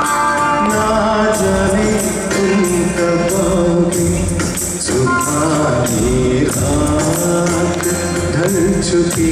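Live song: a man singing a slow Hindi ghazal-style melody into a microphone, over held instrumental notes and a steady percussion beat.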